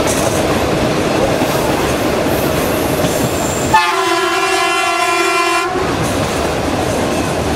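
Metre-gauge train running, heard from inside a carriage as a steady noise of wheels on track; about four seconds in, the DFH21 diesel locomotive's horn sounds one blast of about two seconds.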